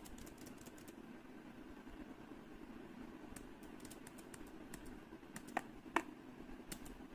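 Laptop keyboard keys pressed now and then: faint scattered clicks, with two louder key presses about five and a half and six seconds in, over a faint steady hum.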